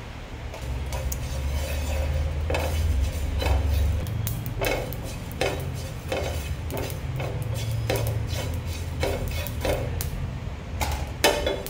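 Wooden spatula stirring and scraping whole seeds, fennel among them, across a dry nonstick frying pan as they toast: a run of short scrapes about once a second, over a low steady hum.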